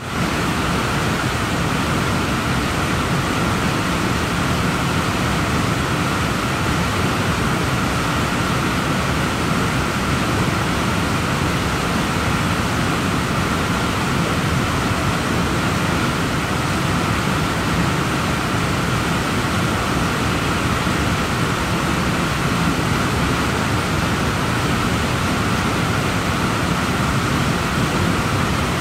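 Mistaya River whitewater roaring through a narrow rock slot canyon: a steady, unbroken rush of fast-moving water.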